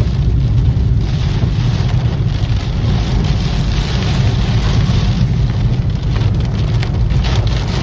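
Heavy rain pouring in a thunderstorm: a steady hiss over a strong low rumble.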